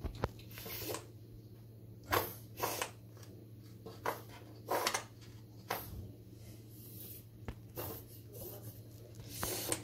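Soft plastic applicator bottle of tile grout being squeezed along the tile joints: about a dozen short, irregular squirts and squelches as grout and air are forced from the nozzle, over a low steady hum.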